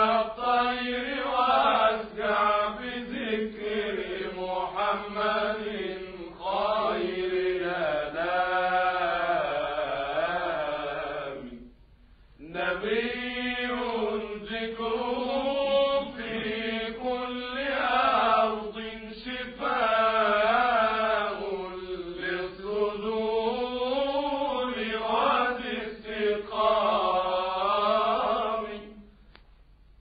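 A solo male voice chanting an Egyptian Islamic tawshih in long, ornamented melismatic phrases that swoop up and down in pitch, with no accompaniment. There is a short pause for breath about twelve seconds in.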